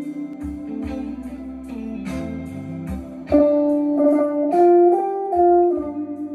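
Classic Vibe Stratocaster electric guitar playing improvised blues lead lines over a blues backing track, with drums keeping a steady beat. From about three seconds in, the guitar holds a few long, louder notes that step up and then back down.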